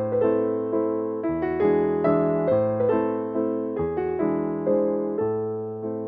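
Background piano music: a gentle melody of evenly paced notes over low bass notes that change every second or so.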